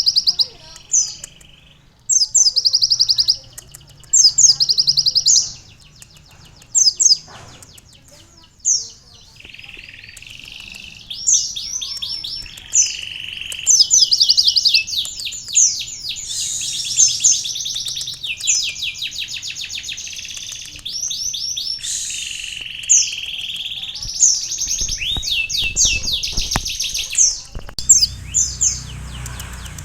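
Olive-backed sunbird (kolibri ninja) singing fast, high trills and chattering phrases, its song filled with learned canary-like passages. The first few seconds hold short separate bursts; from about a third of the way in the trilling runs almost without a break.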